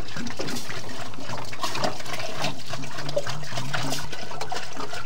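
Water pouring in a steady stream from a large plastic water-cooler bottle into a cooking pot, splashing and gurgling: the pot is being refilled with fresh water after the first boil's water was changed.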